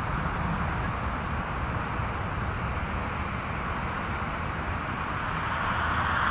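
Twin-engine narrow-body jet airliner's engines at takeoff thrust on the takeoff roll, heard from behind as a steady jet rush that grows louder near the end.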